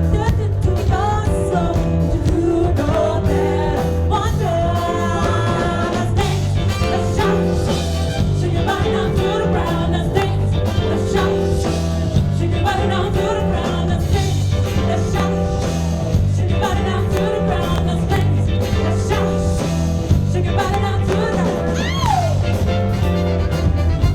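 Song with a lead vocal over a band, with a steady repeating bass line, and a falling vocal slide near the end.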